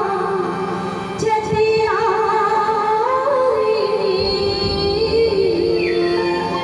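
Chhattisgarhi folk song sung live through PA loudspeakers: a high voice holding long, wavering notes over instrumental accompaniment.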